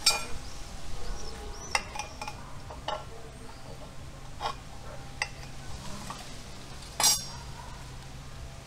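Kitchen knife and serving platter clinking while a lemon is cut and placed: a scatter of about eight sharp clinks and taps, the loudest about seven seconds in.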